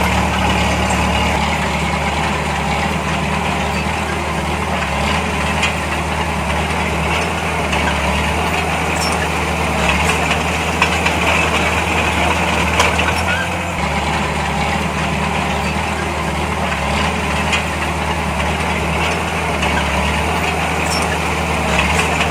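Heavy earthmoving machine's diesel engine running steadily, its pitch shifting slightly about a second in and again about 14 seconds in, with scattered light clicks.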